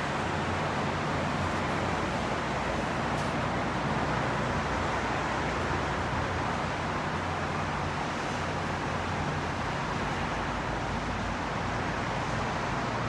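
Steady traffic noise from a busy multi-lane freeway, a continuous wash of car engines and tyres.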